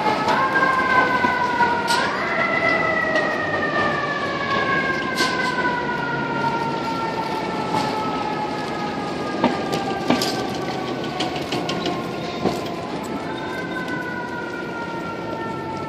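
FDNY fire engine's siren winding up twice in quick succession, then sliding slowly down in pitch for about ten seconds before winding up again near the end. It grows gradually fainter as the engine pulls away.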